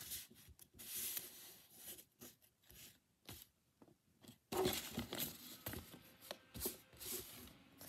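Paper rustling and crinkling in short irregular bouts as handmade paper blind bags are picked up and laid out in a row, with a lull of about two seconds midway.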